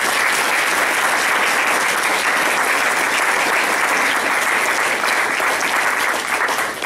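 Audience applauding: dense clapping that eases off near the end.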